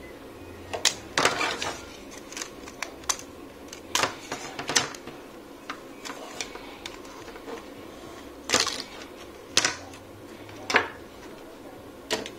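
Irregular plastic clicks, snaps and scrapes as a flexible LED strip is pried out of a ring light's black plastic housing with a screwdriver. There are about a dozen separate sharp clicks, with short clusters of clatter about a second in, around four seconds in and near eight and a half seconds.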